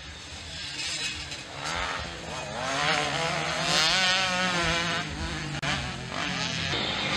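Motocross bikes racing on a dirt track, their engines revving up and down through the throttle as they ride past, with a brief drop-out about five and a half seconds in.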